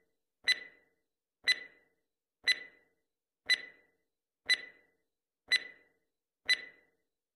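Countdown stopwatch sound effect: a short tick with a slight ring, once a second, seven times.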